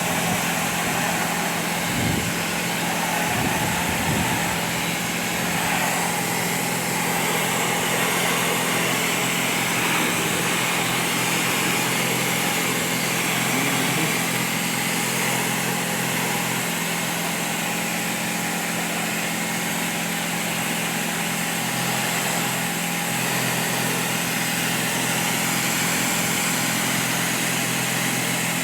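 Pressure washer running steadily, a motor hum under the constant hiss of its water jet spraying the house's siding.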